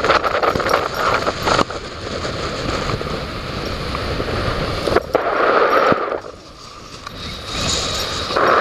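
Wind buffeting the microphone, with crackling rustles and knocks, easing off briefly about six seconds in.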